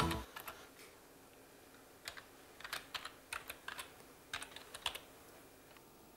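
Typing on a computer keyboard: a short run of uneven key clicks, most of them between about two and five seconds in.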